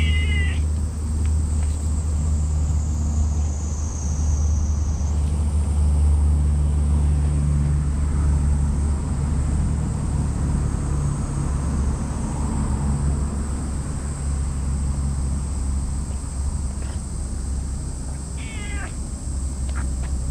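Black cat giving short meows, one at the start and another near the end, over a steady low rumble.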